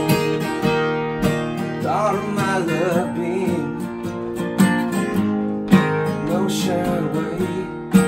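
Two acoustic guitars strumming chords together in a steady rhythm, playing an alt-country song.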